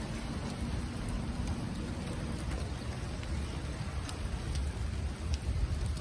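Steady rain falling, with a few scattered drop ticks and a continuous low rumble underneath.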